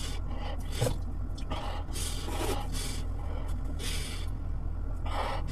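A person eating with her hands, making several short breathy sniffs and sharp intakes of breath over a steady low hum.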